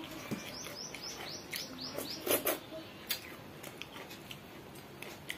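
A bird calling in a quick run of about eight high, falling chirps, then stopping. A few sharp clicks follow a couple of seconds later.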